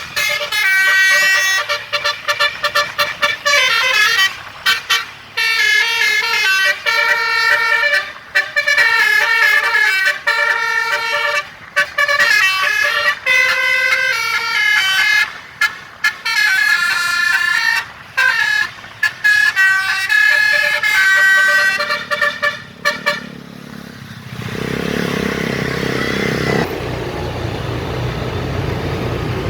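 Basuri telolet bus horn, a multi-trumpet melody horn, playing a long run of short, rapidly changing notes with brief breaks between them. Near the end the horn stops and a steady rushing noise takes over.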